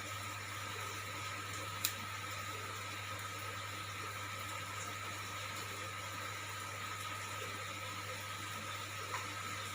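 Steady hiss of heavy rain, with a low hum underneath and one sharp click about two seconds in.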